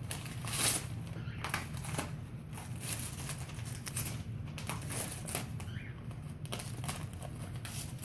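Newspaper crinkling and tearing in irregular rustles as a pet bird picks at and shreds it.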